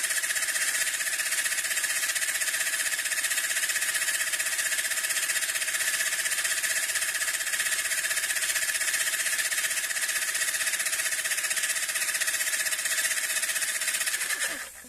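Homemade car tyre compressor, a car heater fan motor driving refrigerator compressor parts, running steadily with a rapid even pulsing, then switched off near the end.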